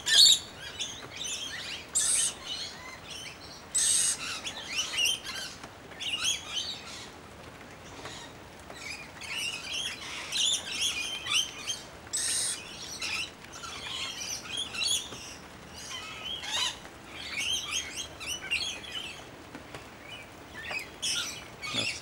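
Rainbow lorikeets chattering in a tree: a steady run of short, high chirps with a few louder screeches about two, four and twelve seconds in.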